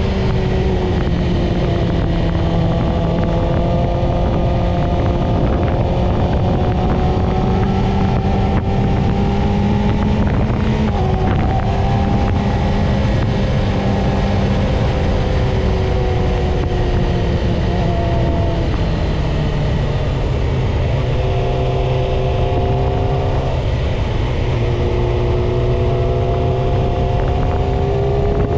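Yamaha YZF-R6's inline-four engine running under way at fairly steady revs. Its pitch drifts gently and drops to a lower note about two-thirds through.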